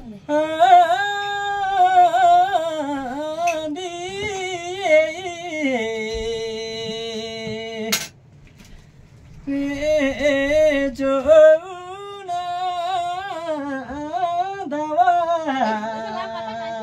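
A man singing a Karmarong song unaccompanied: a wavering, ornamented melody with long held notes at the ends of the lines. The singing breaks off about eight seconds in with a single sharp click, and a new line starts a second and a half later.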